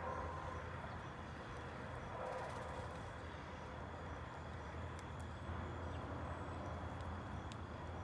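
Outdoor ambience: a steady low rumble with a thin steady high tone over it, and a few faint sharp ticks.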